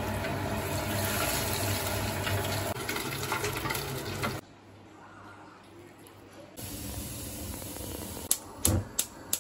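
Tempura sizzling and crackling as it deep-fries in hot oil, stopping abruptly about four and a half seconds in. A fainter steady background follows, with a few sharp clicks near the end.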